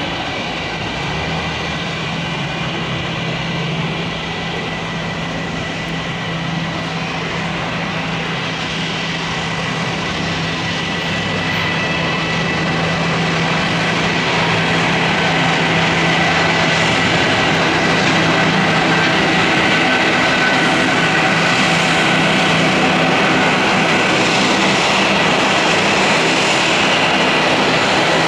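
Bombardier CS300 (Airbus A220-300) airliner's twin Pratt & Whitney PW1500G geared turbofans at takeoff power. Steady jet noise with a high whine that grows louder about halfway through, then holds steady through the takeoff roll and climb.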